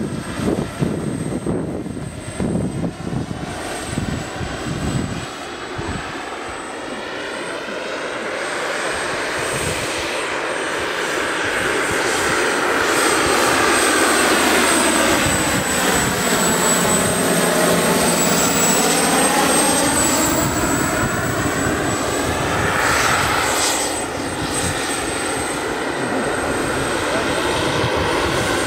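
Large-scale RC Mi-24 helicopter in flight: its Pahl Taurus two-stage model turbine and five-blade main rotor are heard together, with a thin high steady whine over the rotor noise. It grows louder through the first half as it comes past close, then eases slightly near the end.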